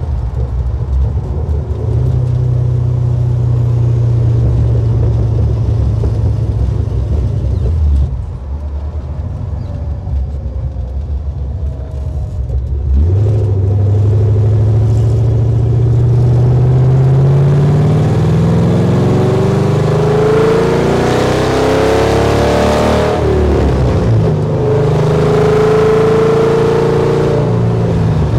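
LSX V8 (GM LS-based) in a 1968 Camaro SS, heard from inside the car: running steadily at cruise, easing off about eight seconds in, then accelerating from about thirteen seconds with the engine pitch climbing, dropping at a gear change about twenty-three seconds in, and climbing again.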